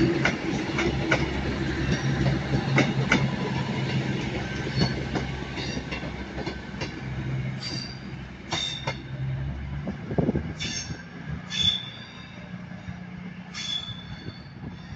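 Avanti West Coast Class 221 Super Voyager diesel multiple unit pulling away over pointwork: a steady diesel engine drone and rapid wheel clicks over rail joints, fading as the train draws off. From about eight seconds in, several short, high wheel squeals sound as it runs through the curves.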